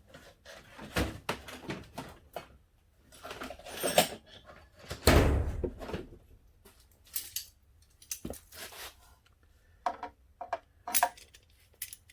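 Clicks, knocks and rattles of hand tools and plastic motorcycle fairing panels being handled while a fairing bolt is undone by hand, with a longer, louder scrape about five seconds in.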